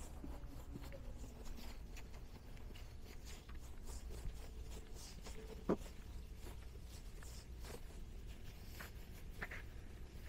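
Quiet indoor room tone: a steady low hum with faint scattered ticks and rustles, and one sharper click about six seconds in.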